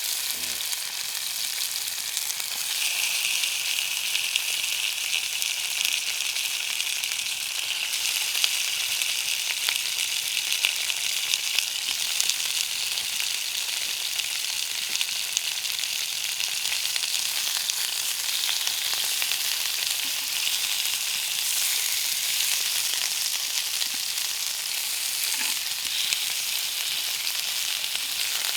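Pork belly slices frying in a small frying pan: a steady, dense sizzle with scattered crackles, growing louder about two and a half seconds in.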